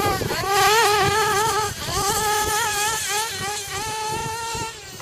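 Small two-stroke nitro glow engine of a GS Racing Storm Evo RC buggy (.21 / 3.5 cc, on 16% nitro fuel) running at high revs. Its pitch dips just after the start as the car passes, then rises and falls with the throttle, and the engine grows fainter near the end as the car moves off.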